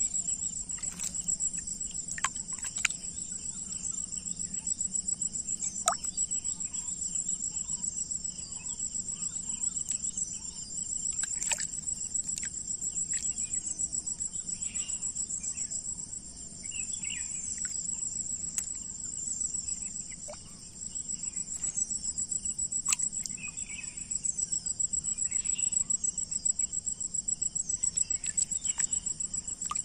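Insects chirring steadily in a high, rapidly pulsing drone, with scattered short chirps and sharp clicks over it.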